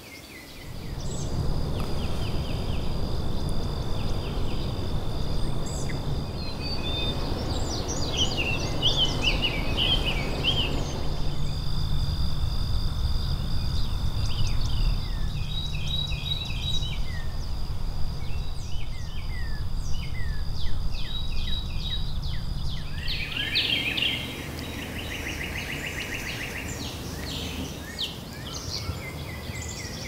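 Many birds chirping and calling over a steady high-pitched whine and a low rumble. The rumble drops away about six seconds before the end.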